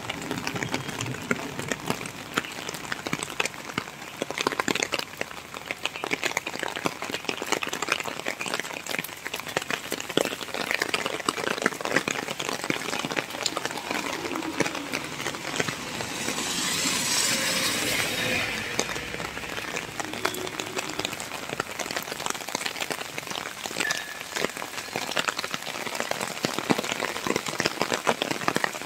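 Steady rain falling, a dense patter of drops. About two-thirds of the way through, a louder hiss swells for a couple of seconds and then eases off.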